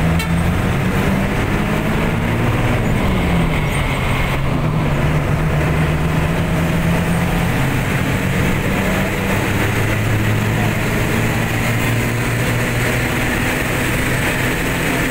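Engine and road noise of a vehicle driving along a highway. The engine pitch drops about three seconds in, then runs steady.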